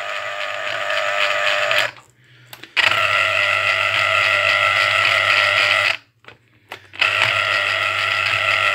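Yelmo EX 1303 electric citrus juicer's motor running as an orange half is pressed onto the reamer: a steady whine with a low hum. It stops twice for about a second and starts again, as the reamer switches direction.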